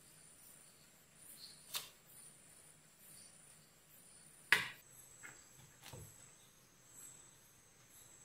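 A metal spoon clicking a few times against the bowl and pastry as filling is scooped into a samosa dough cone, the sharpest click about four and a half seconds in. Crickets chirp steadily in the background.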